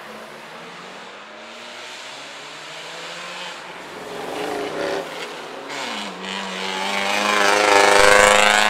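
Tuned car engines pulling away and revving, with a short rev about four seconds in. From about six seconds one car accelerates hard past, its engine note climbing and getting loud near the end.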